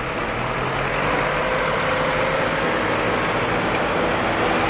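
Farm tractor's diesel engine running steadily while it pulls a loaded forage wagon.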